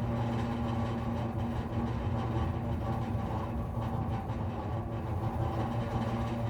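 Power-line post humming steadily with electricity, a low drone with overtones. Wind in the lines blends with it like an aeolian harp.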